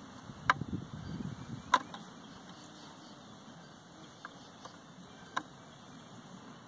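Sharp little metal clicks as a pronged adjusting tool works on the scope of a Japanese Type 97 sniper rifle: three louder ones about half a second, a second and three quarters, and five and a half seconds in, with fainter ticks between. A low handling rustle runs under the first second and a half.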